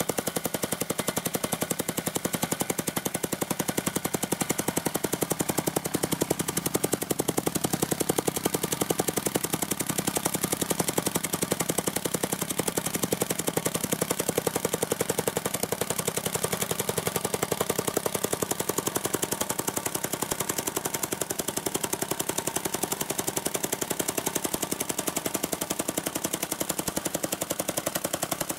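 MTX-60HD tamping rammer, driven by a Honda GX100 single-cylinder four-stroke engine, pounding crushed gravel. Its shoe strikes in a rapid, steady train of impacts with the engine running.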